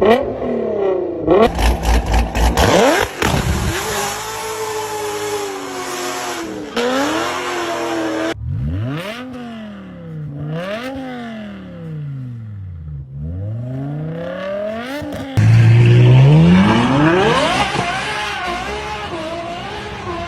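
Car engines revving through their exhausts, one clip after another. The pitch rises and falls with each blip of the throttle. The sound cuts abruptly to a different engine about a second in, again after about eight seconds, and again at about fifteen seconds, where a loud rev climbs steadily.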